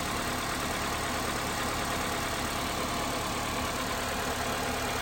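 2008 Honda CR-V's four-cylinder engine idling steadily. It runs smoothly now that its faulty VTEC oil pressure switch, the cause of code P2646, has been replaced.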